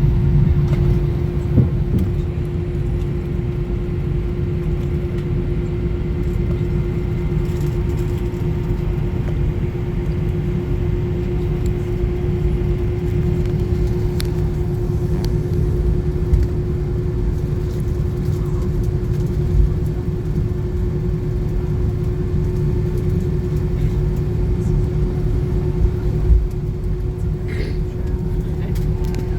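Airliner cabin noise during taxiing: a steady low rumble with one constant droning hum, and a few faint ticks.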